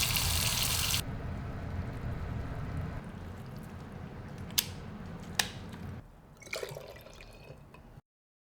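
Water running from a kitchen tap, loud for about a second and then lower, with two sharp knocks in the middle and some light clatter before the sound cuts off to silence near the end.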